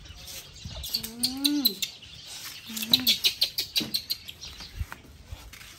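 Baby macaque giving short, high chirping squeaks in quick runs, about a second in and again around three seconds, while being held up. A woman's brief voice sounds are mixed in.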